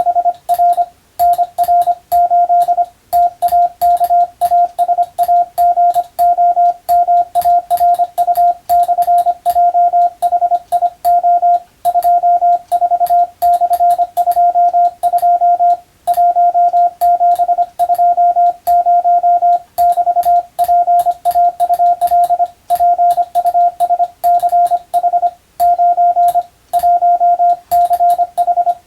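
Morse code (CW) sent by hand on a telegraph key: a single tone of about 700 Hz switched on and off in quick dots and dashes, with short gaps between letters and words. A sharp click marks each keying. The text sent is English-language telegram practice text.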